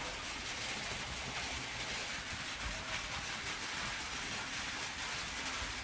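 Steady rain falling on a roof: an even, unbroken hiss.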